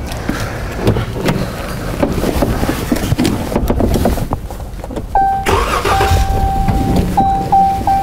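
Chrysler 300's 3.6-litre V6 cranking over hard and catching about five seconds in: a hard start from a faulty crankshaft position signal, traced to a bent tooth on the crank trigger wheel. An electronic chime sounds steadily once it starts, then beeps about three times a second near the end.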